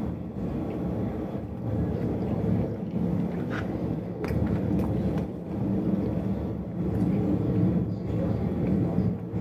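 A steady low background rumble, with a few light clicks of a metal spoon against a plastic bowl as someone eats.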